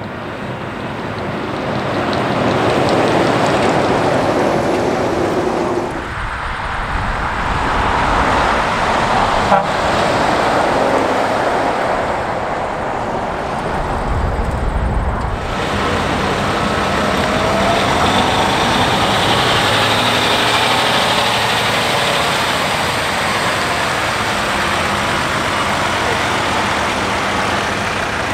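MAN TGX prime movers hauling race-car transporters, driving past one after another: heavy diesel engine and tyre noise that swells and fades, with abrupt changes about six and fifteen seconds in.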